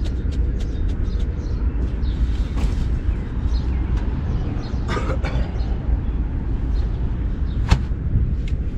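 Shovel and hand work on soil and gravel as a condenser pad is leveled: scattered short scrapes and clicks, a longer scrape about halfway through and one sharp knock near the end, over a steady low rumble.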